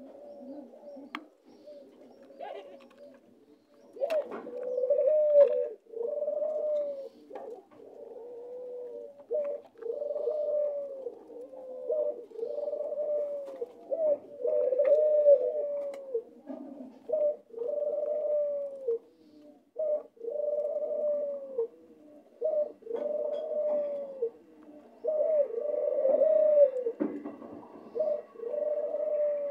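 Caged white doves cooing over and over, one rolling coo every second or two, starting a few seconds in. A few sharp clicks fall between the coos.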